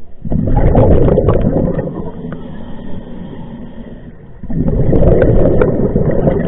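Scuba diver's regulator underwater: two long, bubbling exhalations about four seconds apart, each ending in a quieter stretch.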